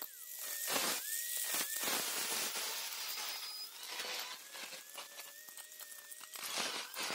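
Corded angle grinder running and grinding the edge of a small steel piece held in locking pliers. The motor's steady whine dips in pitch whenever the wheel bites, giving way to harsh grinding noise, mainly about two to four seconds in and again near the end.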